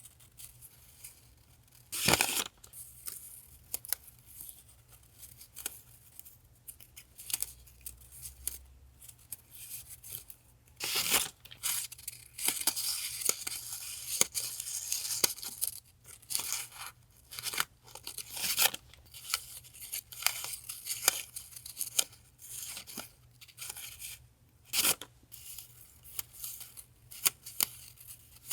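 Paper die-cuts being handled: irregular rustling, crinkling and crisp paper noises, with sharp taps and a longer stretch of steady rustling around the middle.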